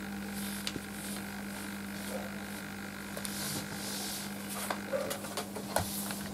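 Faint rustling and brushing of a paper sewing pattern being handled and smoothed on stretch fabric, in several short strokes, with a few light taps in the second half, over a steady low electrical hum.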